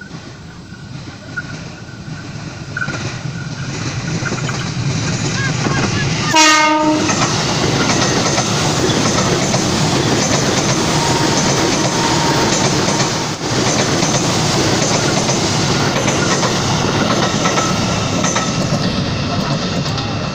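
Electric commuter trains of the ex-JR 203/205 series running on the line: rumble and wheel-on-rail noise building as a train approaches. A single short horn blast sounds about six seconds in, followed by loud, steady rolling noise and clickety-clack of the passing train.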